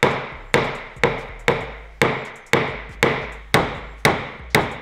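A small hammer taps a plastic knockdown punch against a car door's sheet metal in steady, even strokes, about two sharp taps a second, each with a short ring. This is paintless dent repair: the metal around a door ding is being tapped level.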